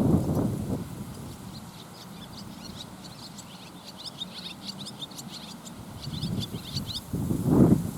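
Strong wind buffeting the microphone in gusts, loudest at the start and near the end. In between, a bird chatters in rapid high-pitched chirps.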